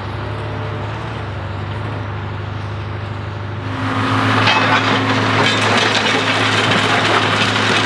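Diesel engine of a railway ballast regulator running steadily. About four seconds in, a loud gritty crunching and scraping of ballast stones being pushed and levelled by its plough comes in over the engine.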